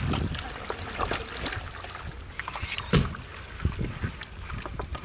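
Raw chicken pieces being mixed by hand in a wet yogurt marinade in a large metal pot: irregular squelching and slapping, with a heavier slap about three seconds in.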